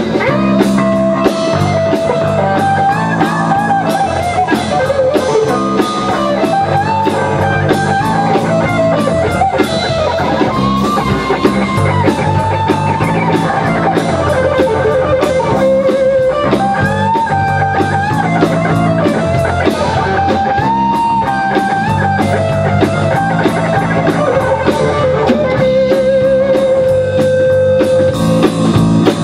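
Live rock band playing an instrumental break: a lead electric guitar line with bent notes over bass guitar and drum kit, ending on a held, wavering note near the end.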